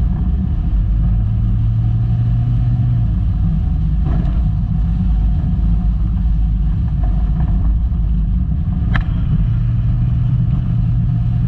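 Volkswagen Golf Mk2 driving over rough off-road ground: a loud, steady rumble of engine and running gear, with a couple of sharp knocks about four and nine seconds in.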